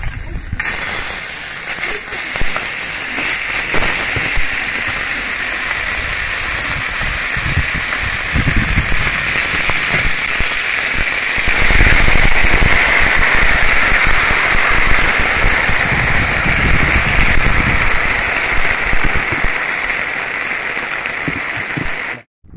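Beef sizzling loudly on a hot cast-iron sizzling plate, a dense steady hiss. It grows louder about halfway through as gravy is poured over the meat.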